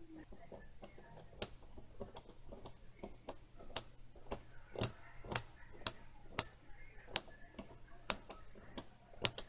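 Marryat MR7A fly reel's click mechanism ticking as its gear is turned slowly by hand, about two sharp clicks a second. A hand-made replacement part is test-fitted, and the action is still a little stiff and catching.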